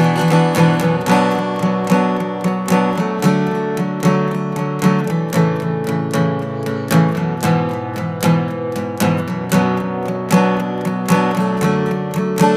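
Background music: a strummed acoustic guitar playing a steady, even rhythm.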